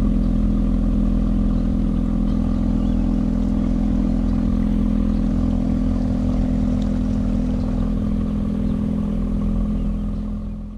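Small boat's outboard motor running steadily underway, a constant low drone with a steady hum; it fades out near the end.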